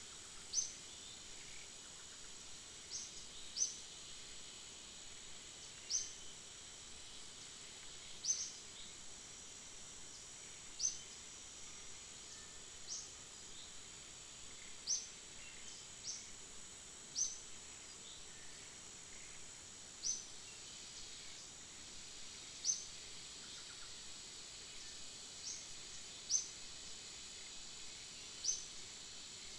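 Forest ambience: a steady high insect drone, with a short, high chirp repeating irregularly every one to three seconds.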